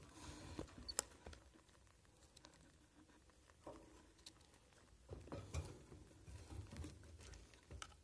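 Budgerigar chicks shuffling and scratching in wood-shaving nest bedding: faint scattered rustles and small clicks, busiest about half a second in and again from about five seconds.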